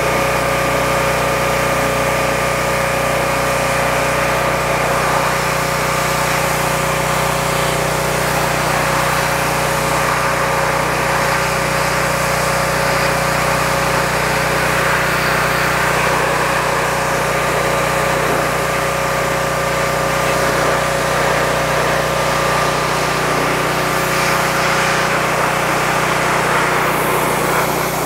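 Pressure washer running steadily, its high-pressure water jet hissing against a transmission case over the machine's constant hum.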